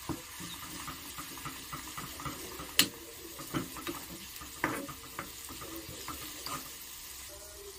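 Metal spoon stirring spring onion leaves and spices in a small pan of hot oil: a steady faint sizzle with scrapes and taps of the spoon against the pan, the sharpest tap about three seconds in.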